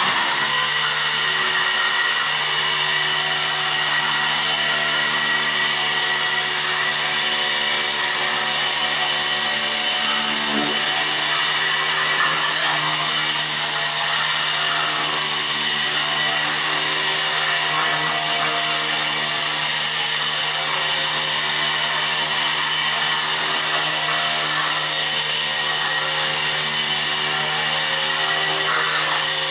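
Electric walk-behind floor scraper switched on at the start, then running steadily: a motor hum with a constant noise over it as its front blade scrapes stuck-on rubber carpet backing off a concrete floor.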